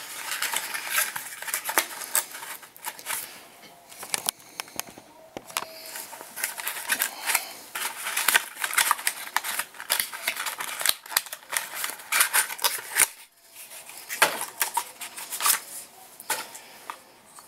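Irregular clicks and taps of a smartphone in a rugged plastic-and-silicone case being handled, with hard plastic knocking and snapping at uneven intervals.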